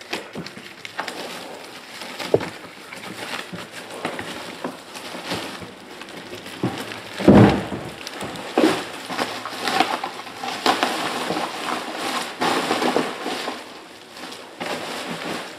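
Crinkling and rustling of a plastic trash bag being stuffed with crumpled wrappers, irregular crackles throughout, with one louder thump about halfway through.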